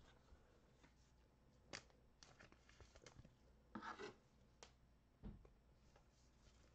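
Near silence, with a few faint rustles and light ticks, most of them in the middle, from trading cards and their foil packs being handled.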